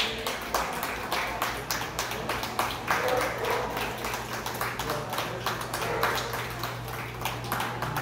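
Scattered hand clapping from a few ringside spectators: sharp claps at uneven intervals, several a second, over a steady low hum from large ventilation fans.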